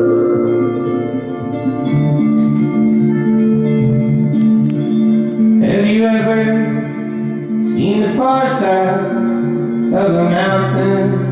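Live song on a hollow-body electric guitar: held, ringing chords, then about six seconds in a man starts singing over them.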